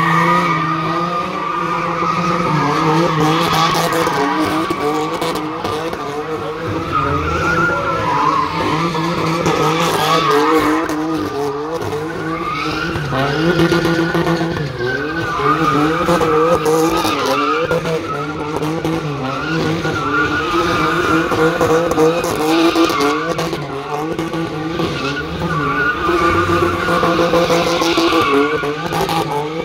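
A car doing donuts. The engine is held high in the revs, rising and falling again and again, over the steady screech of spinning tyres.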